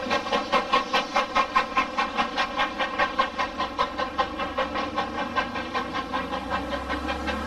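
Steam locomotive exhaust beating steadily, about four to five chuffs a second, as it works a passenger train away; the beats grow slightly fainter toward the end.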